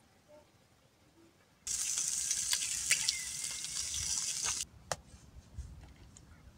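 Water running for about three seconds, starting and stopping abruptly, with a few light clicks in it.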